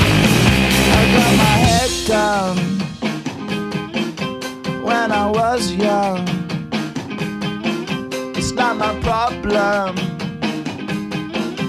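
Background music: a loud, dense rock passage that gives way about two seconds in to a song with a singing voice over a steady drum beat.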